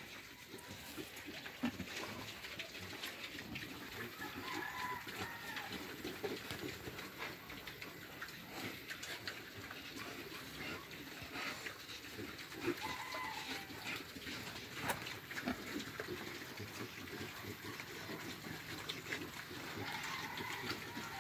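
Young pigs grunting and moving about a concrete pen, with many small knocks and scuffs throughout and a few short higher-pitched calls.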